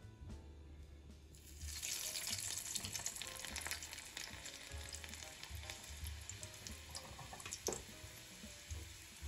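Food sizzling in hot oil in a pot or pan, starting abruptly about a second and a half in and going on with a steady hiss and spatter, with a sharper crackle near the end. Background music with a low bass pulse plays underneath.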